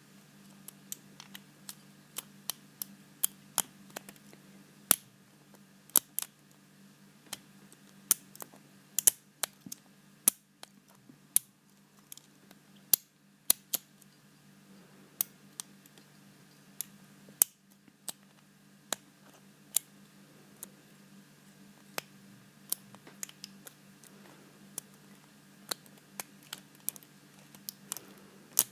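Lock pick and tension wrench working in the keyway of a 7-pin padlock, giving irregular small sharp metallic clicks as the pins are probed and set. A faint steady hum runs underneath.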